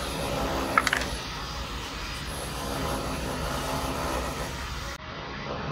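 Steady distant engine rumble, with a few sharp clicks about a second in.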